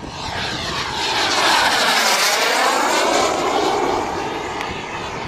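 Black Mamba turbine of an RC Feibao Mirage F1 model jet rushing past in a flyby, swelling to its loudest about a second and a half in and fading away after about three seconds.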